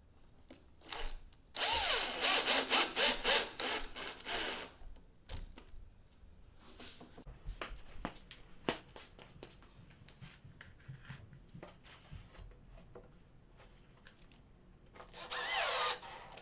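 Cordless drill pre-drilling screw holes through stacked plywood laminations. A long burst of drilling comes first, its motor whine rising and falling as the trigger is worked. Scattered clicks and knocks follow, then a second short burst near the end.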